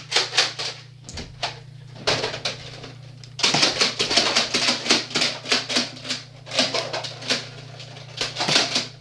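Nerf foam-dart blasters being primed and fired in quick runs: a rapid series of short plastic clacks and puffs, about four a second at its busiest, over a steady low hum.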